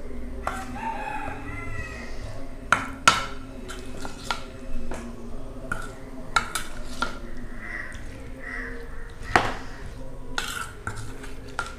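Metal spoon stirring batter-coated cauliflower florets in a stainless steel bowl: irregular clinks and scrapes of the spoon against the bowl, with a few sharper knocks.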